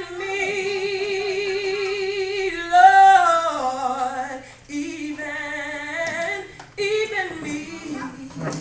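A woman singing a gospel song solo: a long held note with vibrato, then a climb to her loudest, highest note about three seconds in that slides back down, followed by two shorter phrases.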